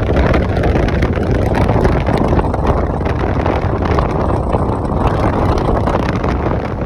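Strong windstorm gusts buffeting the microphone: a loud, steady, low rumbling roar of wind noise.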